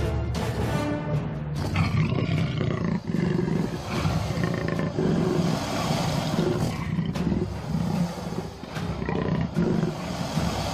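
Big cat growling and roaring in a run of rough, low, repeated pulses, over background music.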